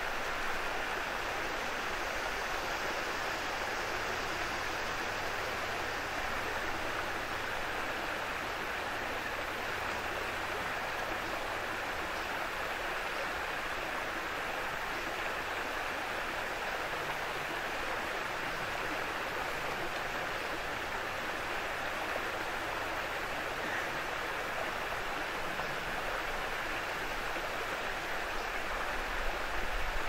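Small waterfall: stream water pouring over a low rock ledge, a steady rushing splash with no pauses or changes.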